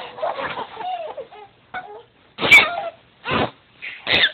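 A man's exaggerated fake sneeze, loud and sharp about two and a half seconds in, with young children laughing and squealing around it.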